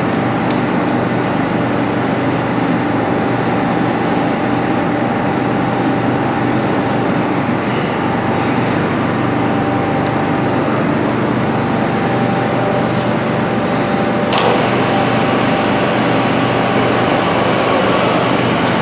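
Metal lathe running steadily, a continuous machine hum with several held tones over a noisy drone. A sharp click comes about 14 seconds in, and one of the tones stops after it.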